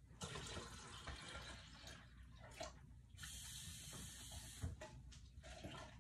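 Faint sound of a kitchen tap running, cold water going into a pitcher; it comes on just after the start and breaks off briefly a couple of times.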